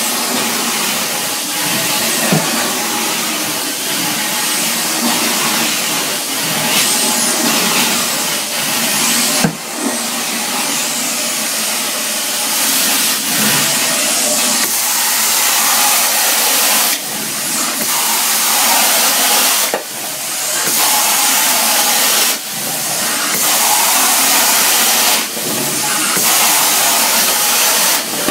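Carpet extraction machine's vacuum pulling air and water up through a stainless steel floor wand as it is worked across carpet in strokes: a steady loud rushing hiss that dips briefly every two to three seconds, with one sharp knock about nine seconds in.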